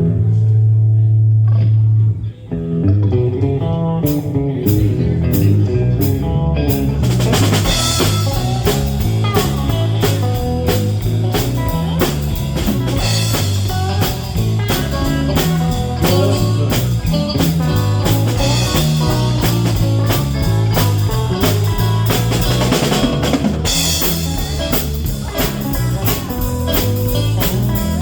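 Live band playing with electric guitar, bass guitar and drum kit. A held low bass note opens, drums come in about four seconds in, and the full band plays together from about seven seconds.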